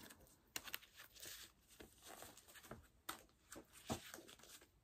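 A deck of playing cards being shuffled by hand: faint, irregular clicks and short rustles of the cards.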